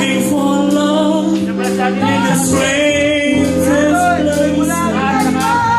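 Live rock band music: a man sings into a microphone over drums with frequent cymbal hits and held, sustained chords underneath.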